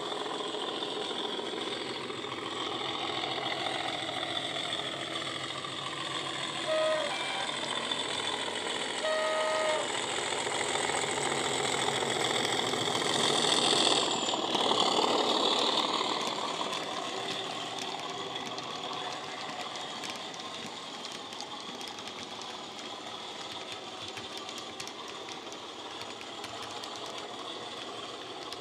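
Sound decoder in an OO gauge Accurascale Class 37 model locomotive playing a recorded English Electric diesel engine under power through the model's small sugarcube speaker, with two short horn toots about two seconds apart. The sound grows loudest about halfway through as the model passes close, then fades as it runs away.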